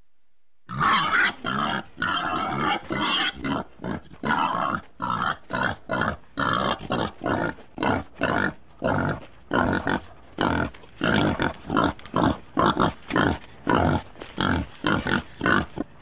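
Boar grunting in a long series of short, rapid grunts, about two to three a second, starting about a second in.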